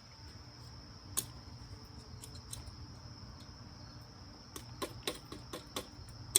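A steady, high insect trill from a chorus of insects, with a few sharp clicks and knocks: one about a second in and a quick run of them near the end.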